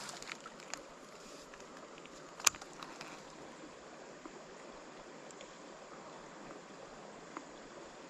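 Faint, steady rush of creek water, with a single sharp click about two and a half seconds in.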